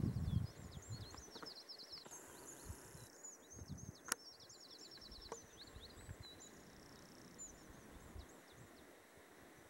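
Small songbirds singing outdoors: many quick high chirps and short rapid trills, on and off throughout. A low rumble on the microphone at the very start, and a single sharp click about four seconds in.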